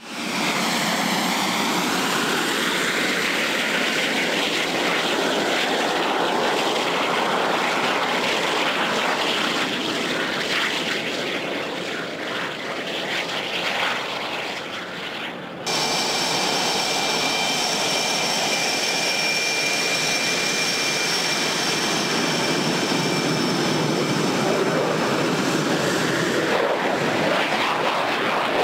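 Fighter jet engines at high power, a loud rushing noise that slowly fades over the first half. After a sudden cut, a close F/A-18 Hornet's twin turbofans run at taxi power, a steady rush with a high, even whine.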